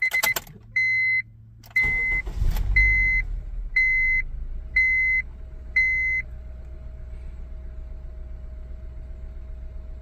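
2007 Honda Civic's four-cylinder engine being restarted: a low hum, then the engine cranks and catches about two seconds in and settles into a steady idle, which the owner finds much smoother after his cylinder 2 misfire repair. Six short electronic beeps sound about once a second over the first six seconds.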